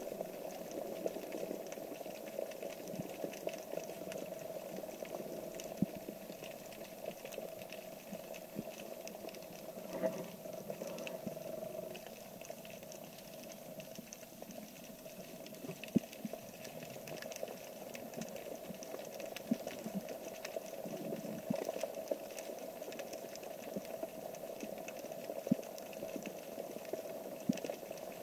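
Underwater ambience: a steady hiss with a constant crackle of small sharp clicks, a few louder ones scattered through.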